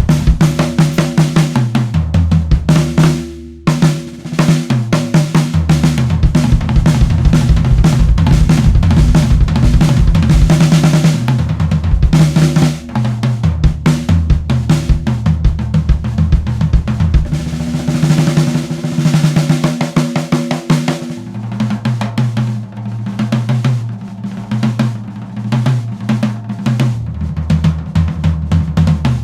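A 1970s Pinguim drum kit being played, fitted with clear double-ply batter heads: bass drum, rack tom and floor tom with snare, hi-hat and cymbals, in fast fills and grooves. The toms ring with held pitches, and there is a short break about three seconds in.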